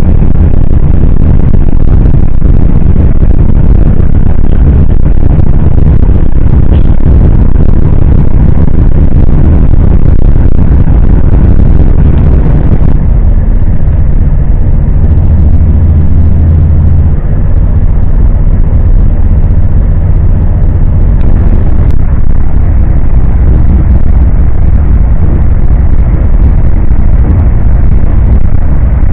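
Moving passenger train heard from inside the carriage: a loud, steady, deep rumble of the train running on the rails.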